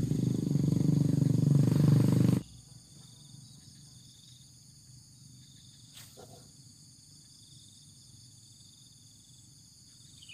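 A loud, low rumbling noise that cuts off abruptly about two and a half seconds in, leaving faint, steady, high-pitched insect buzzing with a couple of soft clicks.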